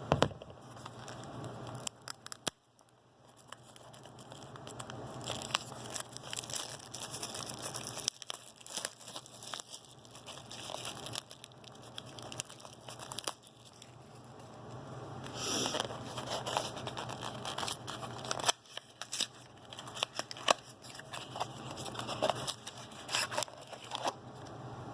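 Plastic wrapping crinkling and tearing as a sealed trading-card box is unwrapped and opened, with scattered clicks and rustles of card packaging.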